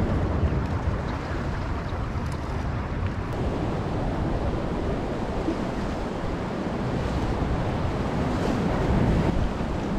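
Steady surf noise of waves washing against the rocks, with wind buffeting the microphone.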